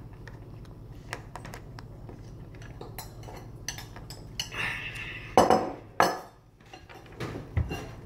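Small plastic toy food pieces clicking and clattering as they are handled and packed into a small toy crate on a wooden table: scattered light clicks, with two louder knocks about five and a half and six seconds in.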